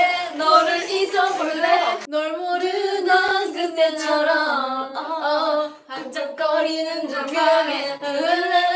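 Female voices singing a pop melody in long held phrases, with short breaks about two and six seconds in.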